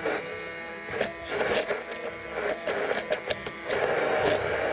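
Immersion hand blender running in a tall plastic beaker, its motor buzzing steadily as it purees coriander and green chillies with ice water into a chutney, with a few short clicks from the blades against the ice.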